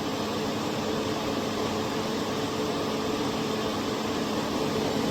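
Small electric fan of a soldering smoke absorber running steadily: an even rush of air with a steady low motor hum.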